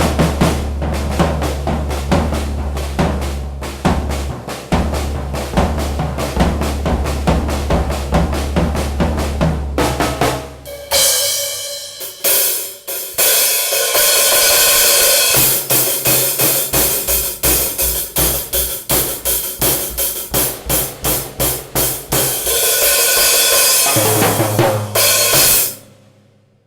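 A drum kit played hard: snare, hi-hat and bass drum in a steady groove, then from about halfway a busier passage under a bright, continuous cymbal wash. The playing stops suddenly near the end.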